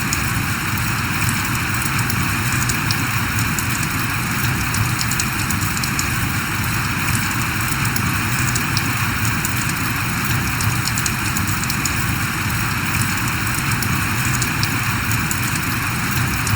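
Steady rain falling: a dense, even hiss with many small, sharp drop ticks and a low rumble underneath.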